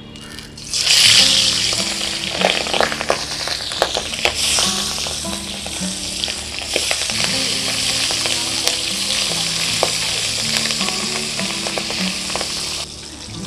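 Pabda fish frying in hot oil in a steel kadai: a loud sizzle that surges about a second in as the first fish goes into the oil and flares again a few seconds later as more are added, with constant crackling spatters and the odd scrape of a spatula.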